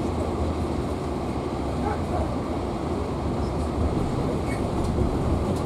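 Steady running noise of a passenger train at speed, heard from inside the carriage: an even low rumble of wheels on track.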